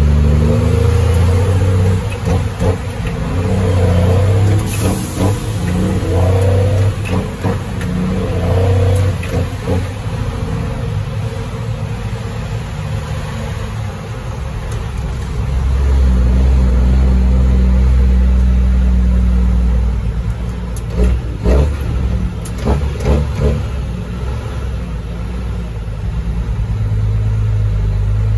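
Cummins M11 Select Plus inline-six diesel of a Freightliner FLD heard from inside the cab, pulling through the gears of an 18-speed transmission, its low engine note dropping and rising again with each shift. A few sharp clicks come about three quarters of the way through.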